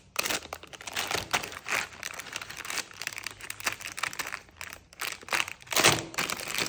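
Packaging being handled and unwrapped by hand, a continuous irregular crinkling and rustling with a louder crackle near the end.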